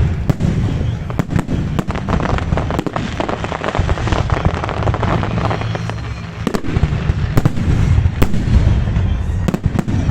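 Fireworks salute: many sharp bangs of shells bursting at irregular intervals over a continuous low rumble.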